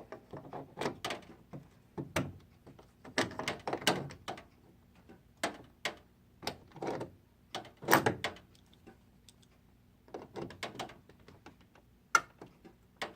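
Irregular clicks and plastic knocks of pliers working the bare control-switch shafts of a knobless Fedders window air conditioner, with the unit's housing being handled. The strokes come in clusters with short pauses, and there is a faint steady hum underneath.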